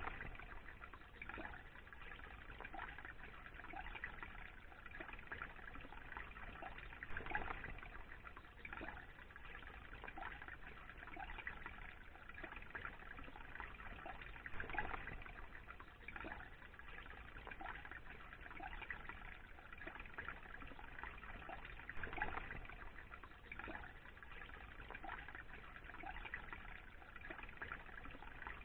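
Small brook trickling and splashing over stones: a faint, steady babble with many small irregular splashes.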